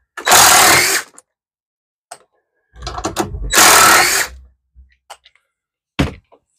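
Cordless impact driver running in two bursts of about a second each, hammering as it turns a screw, with a lower rumble just before the second burst.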